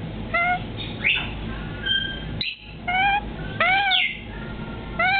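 African grey parrot giving a series of short whistles and squeaks, about seven separate calls, several of them arching up and then down in pitch.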